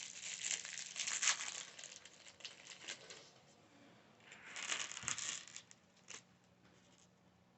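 Plastic parts bag of a building set crinkling and rustling as it is handled and torn open, in two stretches: through the first three seconds and again around five seconds in.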